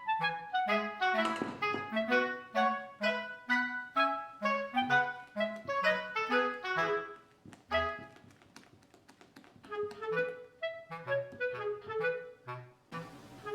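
Background music: a light, bouncy tune of short, detached notes over a stepping bass line, which thins out for about two seconds a little past the middle before picking up again.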